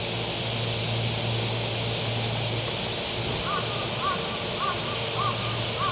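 A bird calls five times in a regular series, each call a short arched note about half a second after the last, starting a little past the middle. Under it runs the steady hum of a JR West 225 series electric train standing at the platform.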